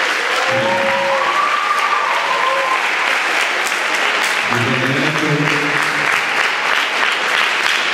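An audience clapping loudly, with voices calling out over the applause in the first few seconds. From about halfway, a voice talks under the clapping.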